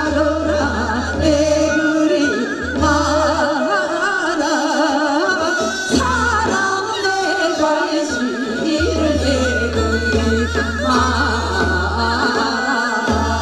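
Women singing a Korean folk song (minyo) into microphones, the melody wavering in a wide vibrato, over amplified accompaniment with a heavy bass.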